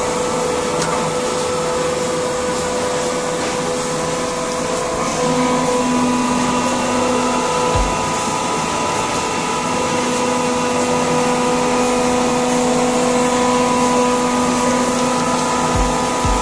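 Kangsaisi rotary screw air compressor running loaded: a steady machine drone with a constant whine, building air pressure.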